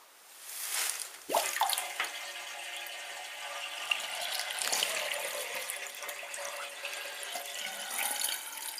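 Water running down a sink's plughole, a steady rushing and gurgling flow that builds up over the first second or so.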